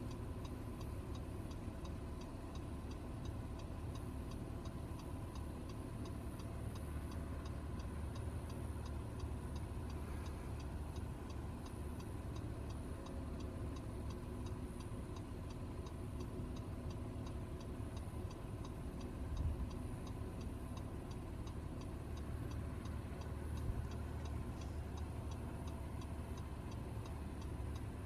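Car running on the road, heard from inside: a steady low rumble of engine and road noise, with a fast, even ticking running through it.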